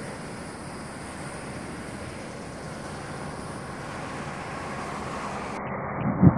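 Steady outdoor rushing noise of wind on the microphone, slowly growing louder, with a brief loud low thump of a gust buffeting the microphone about six seconds in.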